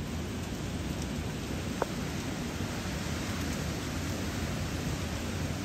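Steady noise of hurricane wind and rain, heaviest in a low rumble. One short click about two seconds in.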